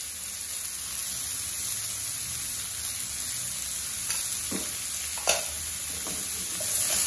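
Diced radish frying in oil in a metal kadai on a lowered flame: a steady sizzle, with a few short knocks of the metal perforated ladle against the pan in the second half.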